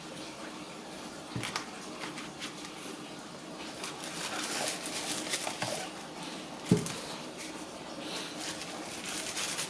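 Handling of a small cardboard product box: light rustling and soft taps, with one sharper thump about seven seconds in.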